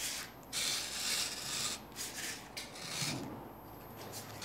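Utility knife cutting through the overhang of non-woven wallpaper along a wallpaper spatula, in a few long scraping strokes that fade after about three seconds.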